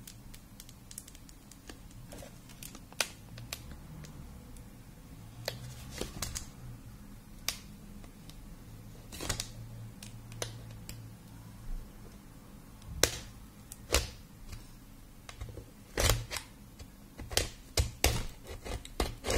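Plastic pry tool clicking and scraping against a cardboard box as it slits the box's seal: scattered sharp clicks, closer together near the end.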